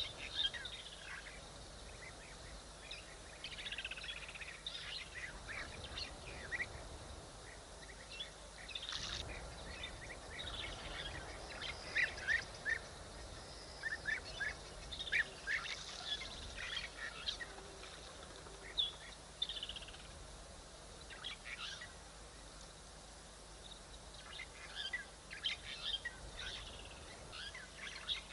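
Short, high chirping calls coming in clusters every few seconds over a faint steady outdoor hiss. These are bird-like twitters from birds or from the African wild dogs at the waterhole.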